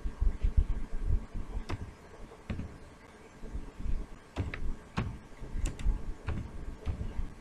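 Computer keyboard keystrokes: a few slow, separate key clicks as a word is typed, over a low background rumble.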